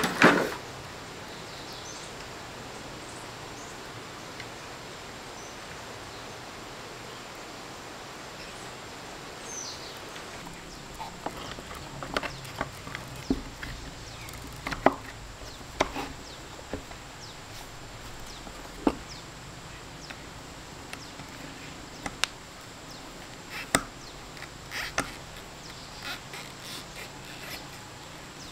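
Scattered light clicks and knocks of tools and small parts being handled, with a short loud clatter at the very start and more frequent taps in the second half.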